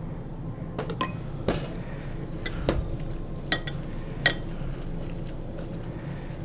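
Gloved hand mixing chicken pieces with flour, spices and oil in a glass bowl: several sharp clinks of glass as the bowl is knocked, the loudest about three and a half and four seconds in, over a steady low hum.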